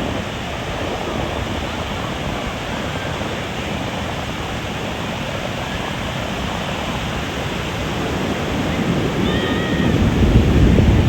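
Ocean surf breaking on a sandy beach, a steady rush of waves that swells into a louder, deeper rumble near the end as a wave breaks closer in.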